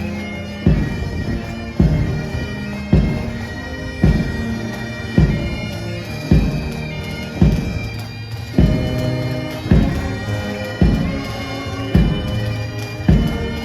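A marching brass band playing a Christmas medley: held brass chords over a steady big bass drum beat, about one hit a second.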